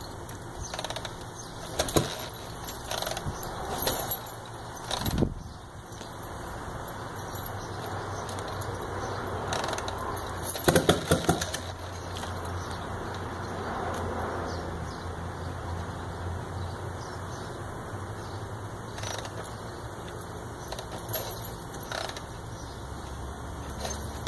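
A Harley-Davidson with a re-jetted S&S carburettor being kick-started by hand: a few sharp metallic clanks and rattles, a denser burst of them about eleven seconds in, then a low steady hum.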